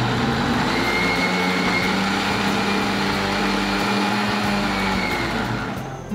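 Electric mixer grinder running loud and steady, blending boiled tomato, onion and cashew into a thick paste without water. The motor is switched off about five seconds in and winds down.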